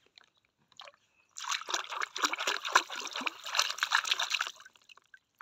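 Water splashing and sloshing in a shallow plastic tub as a small plastic toy animal is swished through it by hand. It starts about a second and a half in and lasts about three seconds.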